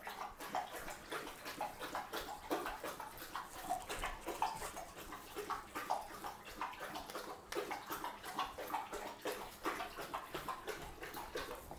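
Dogs eating and drinking from their bowls: a quick, irregular run of lapping and chewing sounds.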